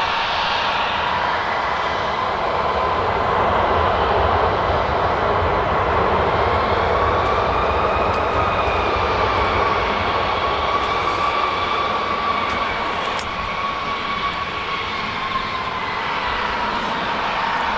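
Jet engines running: a steady rush with a whine of several tones that rises slightly near the middle and eases back. The sound comes from a J-Air Embraer E-Jet regional jet taxiing close by, with an airliner slowing on the runway behind it.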